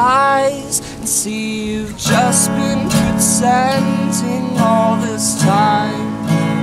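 A man singing over a strummed acoustic guitar, his sung lines sliding up into held notes over the steady chords.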